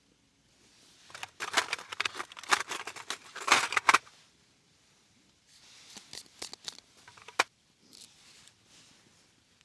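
Close crackling and rustling, like something being torn or crumpled, in two bouts: a dense, loud one of several seconds, then a quieter one that ends in a single sharp click.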